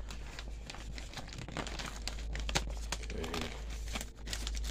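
Wendy's brown paper takeout bag crinkling and crackling as hands unroll its folded top to open it, in quick irregular rustles.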